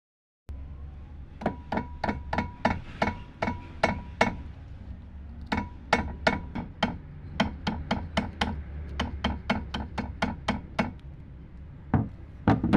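Hammer tapping in quick runs of about four blows a second, three runs with short pauses between, the first run with a faint ringing note, then two harder knocks near the end.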